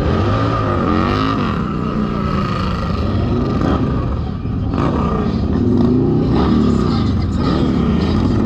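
Several big motorcycle engines idling and being revved, the pitch rising and falling repeatedly over a steady low rumble, with voices mixed in.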